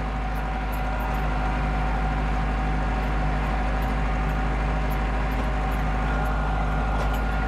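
Landini Blizzard 65 tractor engine running steadily under load while towing a smooth field roller at cruising speed, with a constant even hum.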